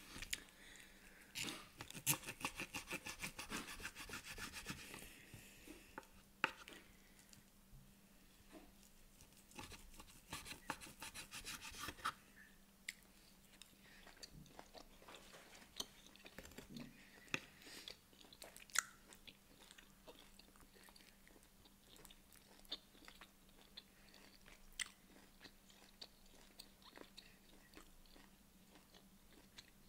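A person chewing tough, fatty rib steak close to the microphone, with scattered clicks of a knife and fork. There are two spells of quick rasping strokes from the knife sawing through the meat: one a couple of seconds in, and one around ten seconds in.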